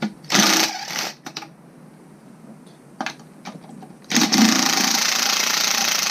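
A small power tool runs in two bursts, a short one and then a longer steady one of about two seconds, spinning off the nut that holds the engine's oil pickup tube.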